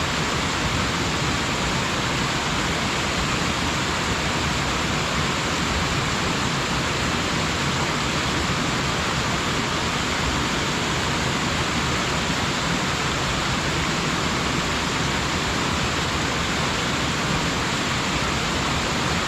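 Waterfall with water falling and splashing in a steady, unbroken rush.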